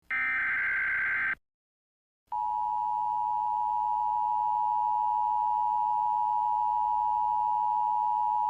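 Emergency Alert System broadcast: a SAME header data burst, a harsh digital warble lasting about a second and a half, then a short gap. The steady two-tone EAS attention signal (853 and 960 Hz) starts about two seconds in and holds.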